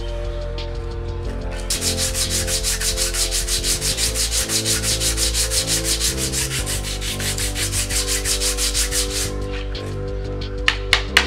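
A brake pad rubbed back and forth on a sheet of sandpaper in quick, even strokes, scuffing its friction surface. The sanding stops about nine seconds in, and three sharp taps follow near the end.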